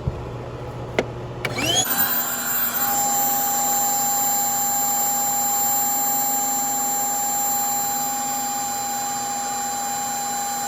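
Vacuum hooked to an air conditioner's condensate drain line switched on about a second and a half in, its motor whining up to speed and then running steadily, sucking out the stopped-up drain line.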